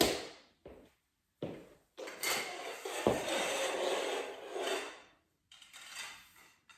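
Adjustable backdrop stand pole being lowered: a few latch clicks, then the inner section sliding down inside the outer tube with a long rubbing scrape and a knock about three seconds in.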